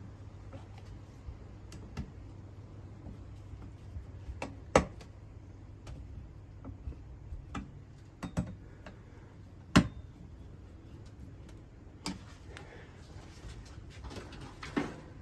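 Scattered clicks and knocks of plastic skylight hatch parts being handled and fitted back into the caravan roof frame, with two sharper knocks about five and ten seconds in, over a low steady hum.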